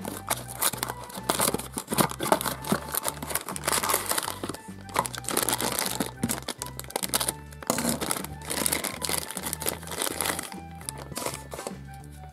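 A small cardboard blind box being torn open by hand and a thin plastic wrapper crinkling and tearing in a dense, irregular run, over background music.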